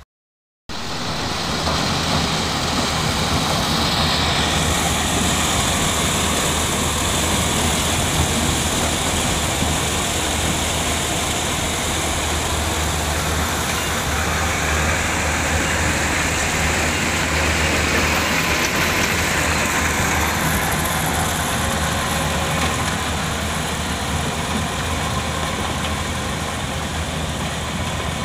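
Kubota combine harvester running under load as it cuts and threshes standing corn: a steady engine drone mixed with the noise of the threshing works. It starts suddenly after a moment of silence.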